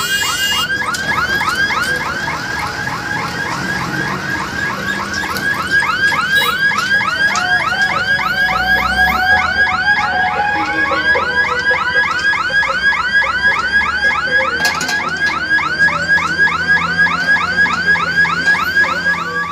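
Level crossing warning siren sounding a rapid, repeating electronic chirp, about four short falling tones a second, the signal that the gate is closing for an approaching train.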